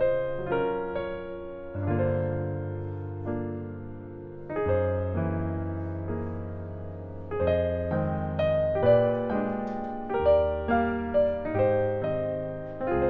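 Solo piano background music: gentle chords over held bass notes that change every couple of seconds, with a quicker run of notes near the end.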